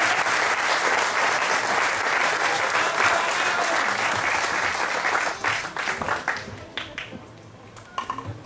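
Audience applauding: dense, steady clapping that thins out about five seconds in to a few scattered claps and then dies away.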